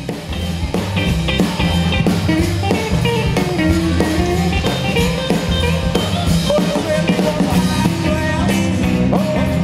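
A rock and roll band playing live: drum kit and electric guitar, with a voice singing over them.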